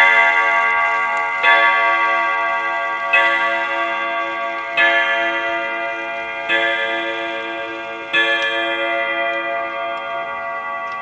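Longcase clock striking the hour on its steel gong rods: six identical strokes about a second and a half apart, each ringing on and fading into the next, with the movement ticking underneath.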